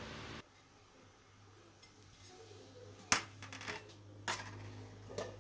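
A spoon scrapes the last ground spices out of a ceramic bowl for a moment, then a low steady hum with three sharp clicks of dishes being handled, spread a second or so apart.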